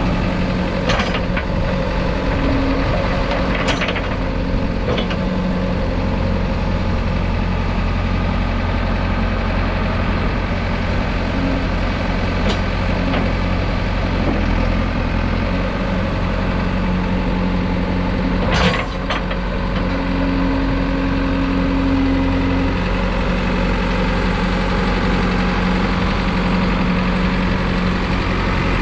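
JCB 4CX backhoe loader's diesel engine idling steadily. A few brief sharp clicks or knocks sound over it, the loudest about two-thirds of the way through.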